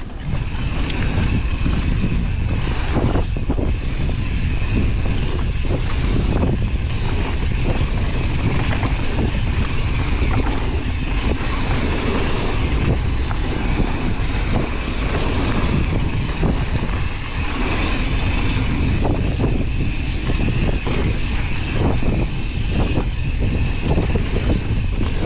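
Wind rushing over the microphone as a mountain bike rides a trail, with tyre noise and frequent short knocks and rattles over bumps.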